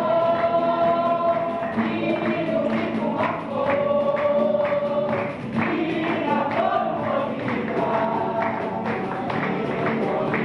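Several voices singing together in long held notes, with a percussive beat of sharp strikes running underneath.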